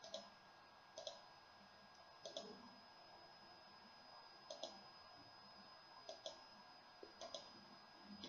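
Faint computer mouse clicks, each a quick pair of clicks, coming about every one to two seconds, about seven times in all.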